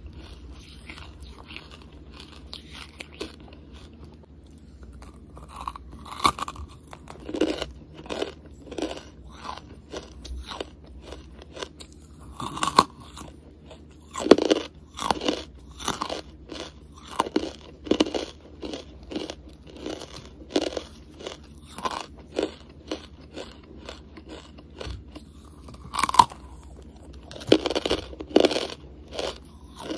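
A person biting and chewing a hard lump of charcoal: sharp crunches, about one or two a second, after a quieter first few seconds.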